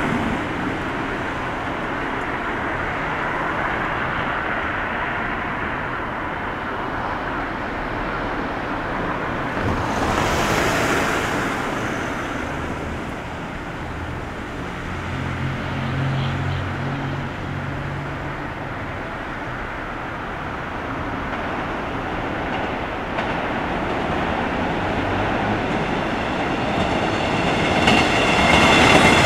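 JR West 115 series electric multiple unit approaching on the main line, its running noise steady at first and growing louder near the end as it passes close by, with wheels clacking over rail joints.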